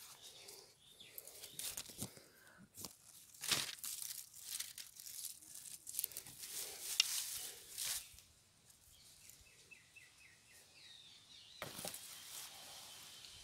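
Curry leaf stalks being snapped off the plant and leafy branches rustling and crackling in the hand, in irregular bursts of sharp cracks through the first eight seconds. After that it is quieter, with a quick run of about eight short high chirps, then a single sharp click near the end.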